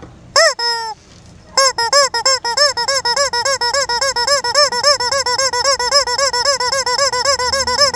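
Noise-making squeaky toy chicken being squeezed: two short squeaks, then from about a second and a half in a fast, even string of squeaks, about five a second.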